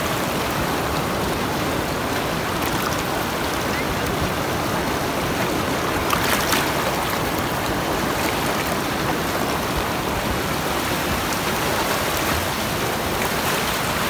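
Fast, rocky mountain river rushing over and around stones in a steady, unbroken rush of churning water.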